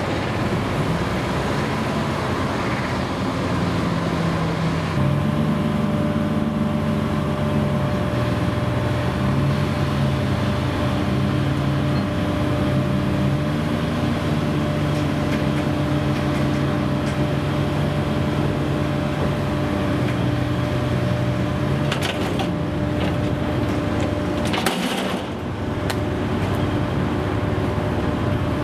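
Ship's deck crane machinery running steadily while hoisting a net of tuna, its hum stepping up and down in pitch as the load shifts, with a few clanks about 22 and 25 seconds in.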